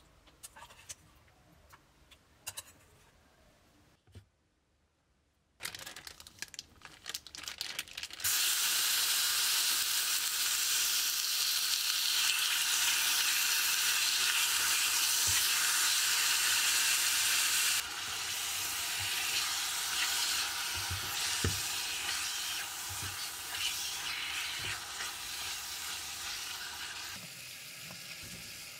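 Marinated chicken pieces sizzling as they fry in a small electric pot, stirred with a silicone spatula. The sizzle starts suddenly about eight seconds in, after a few light clicks, and eases off in two steps later on.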